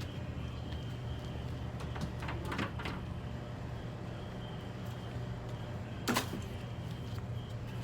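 A few light clicks and scrapes of hand tools and engine parts being handled during spark plug and plug wire work, the sharpest click about six seconds in, over a steady low hum.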